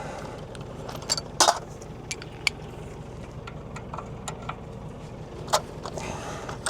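Scattered sharp metallic clinks and taps of a tool working on an excavator's track adjuster, over a steady low engine hum.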